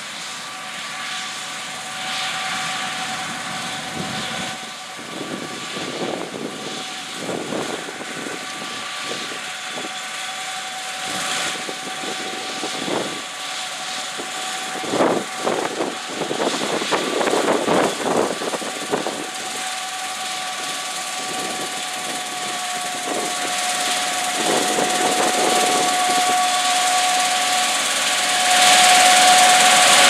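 Gleaner S78 combine harvester running while cutting wheat: a steady machinery whine over the engine noise, growing louder as it approaches and loudest as it passes close near the end. Uneven bursts of rumbling noise come and go through the middle.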